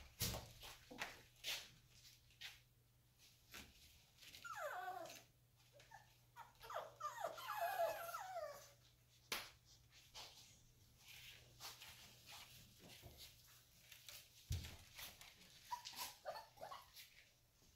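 Seven-week-old American Bully puppies whining: a falling whine about four seconds in, a longer, wavering stretch of whining from about six to nine seconds, and short whimpers near the end. Scattered clicks and knocks run underneath.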